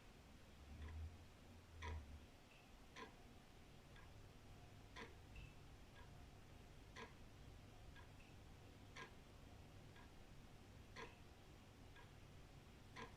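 Old wall clock ticking faintly about once a second, the ticks alternating strong and weak in a tick-tock pattern.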